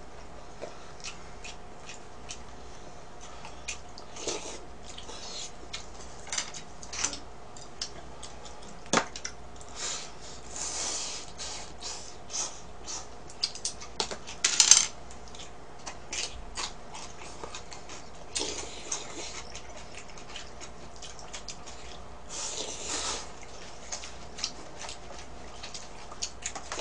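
Eating cup ramen: chopsticks and a spoon clicking and tapping against a bowl and plastic containers, with several noisy slurps of noodles, each about a second long, and chewing.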